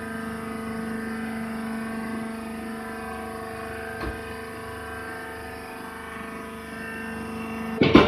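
Hydraulic rice husk baler's power unit (electric motor and pump) running with a steady hum and a whine of several constant tones. A single faint click about halfway through, and a sudden loud knock just before the end.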